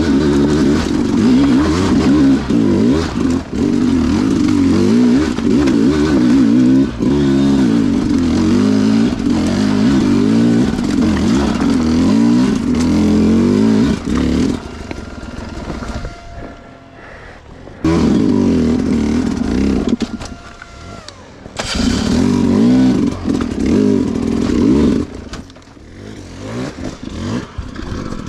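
Two-stroke dirt bike engine revving hard and unevenly, the revs rising and falling in quick bursts as it is worked over rough ground. The revs drop off briefly three times, about halfway through, a little after, and near the end, before picking up again.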